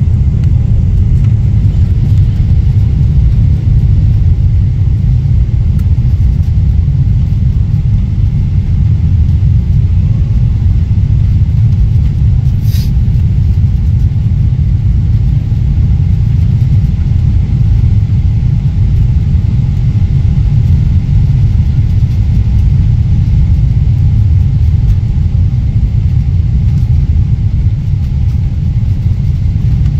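Steady low rumble of engine and airflow noise inside the cabin of a Boeing 777 airliner on approach, with a single brief click near the middle.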